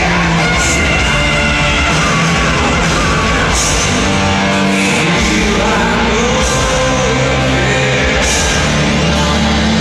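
Hard rock band playing live: electric guitars, bass and drums with singing, loud and even, heard from the crowd in the arena.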